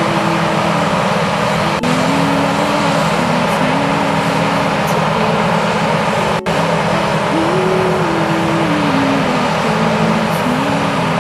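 John Deere combine harvester running under load while its unloading auger pours grain into a trailer: a loud, steady mechanical din with a low drone throughout.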